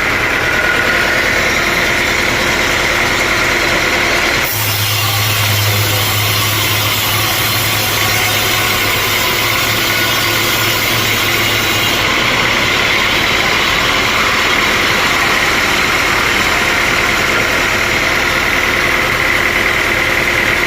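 Sawmill machinery running steadily and loudly. From about four seconds in, a steady low hum and a high hiss come in for several seconds, then drop away.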